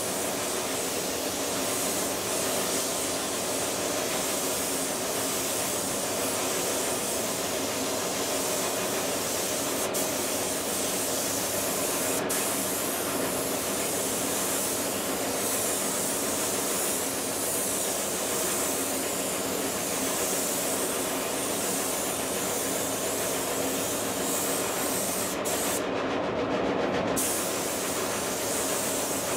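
Gravity-feed spray gun hissing steadily as paint is sprayed onto a car panel, with the spray stopping for about a second near the end. A steady low hum runs underneath.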